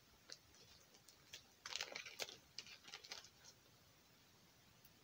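Faint rustling and crinkling of small packaging being handled, with a few light clicks; the handling is busiest from about one and a half to three and a half seconds in.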